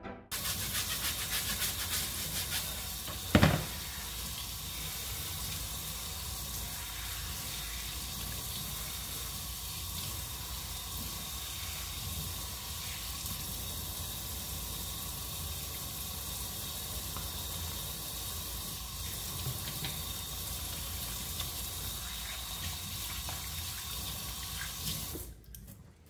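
Kitchen faucet running steadily onto a dishwasher filter as it is rinsed in a stainless steel sink, with a single sharp knock about three and a half seconds in. The running water stops shortly before the end.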